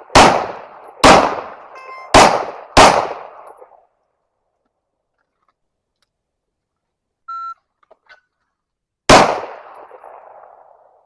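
Springfield Echelon 9mm pistol with a Patriot CNC compensator firing four shots in quick succession, each with a ringing tail. A short electronic shot-timer beep sounds about seven seconds in, and a single shot follows it almost two seconds later.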